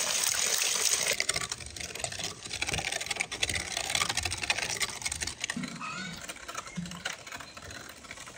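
Tap water splashing over greens in a metal colander for about the first second, then a hand-cranked meat grinder turning as it grinds meat: a fast run of mechanical clicks that grows fainter toward the end.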